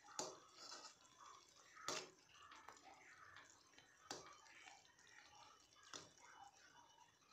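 Faint sounds of a metal ladle stirring thick kadhi with pakoras in a metal kadai: soft wet liquid sounds, with four light clicks of the ladle against the pan about two seconds apart.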